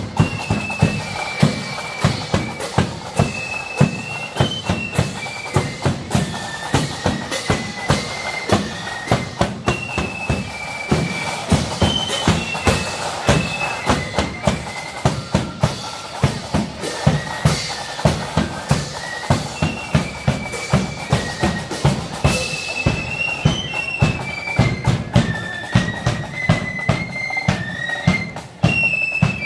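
Marching band playing: a high, shrill melody line over a steady beat of drums, with bass drum strokes about twice a second.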